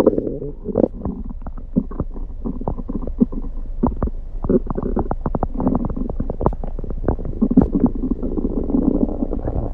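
A man's stomach gurgling and rumbling, with many quick pops and clicks throughout; his stomach has been upset all day.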